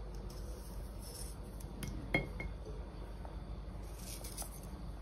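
Faint clicks of a small kitchen knife slicing garlic cloves by hand over a ceramic bowl, with a short ringing clink of metal against ceramic about two seconds in, heard twice in quick succession.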